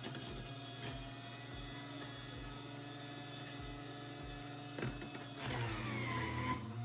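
Electric centrifugal juicer's motor running with a steady whirring hum. Near the end the sound gets louder and the whine falls in pitch as pineapple is pushed into the feed chute and the motor takes the load.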